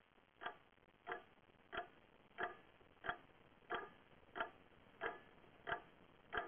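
A clock ticking steadily in an otherwise quiet room, about three ticks every two seconds.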